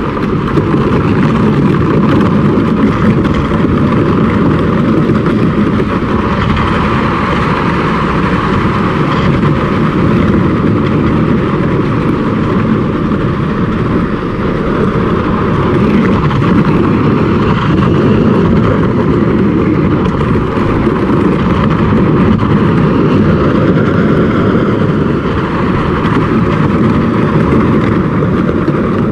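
Plastic hull of a sit-on-top kayak scraping steadily along asphalt as it is towed behind a truck on a chain, mixed with the truck's road noise.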